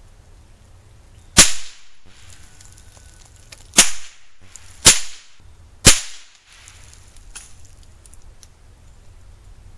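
Four sharp gunshots. The first comes about a second and a half in, then after a gap three more follow about a second apart.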